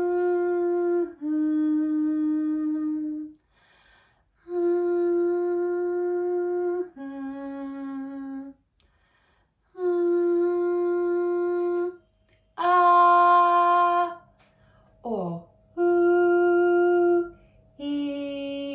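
A woman humming pairs of long held notes, a higher note then a lower one, about four times over. One note partway through is louder and brighter, and a quick downward slide of the voice follows it.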